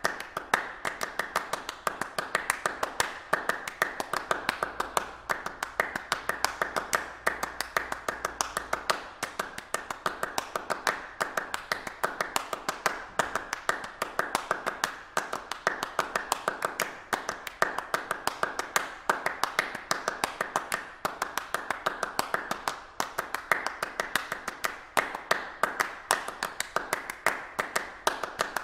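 A fast, continuous run of sharp percussive clicks, like claps or taps, several a second, swelling and easing about every two seconds.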